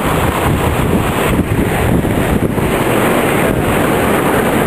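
Storm-surge surf rushing and churning as whitewater floods across the beach, under heavy wind buffeting the microphone. The noise is loud and steady.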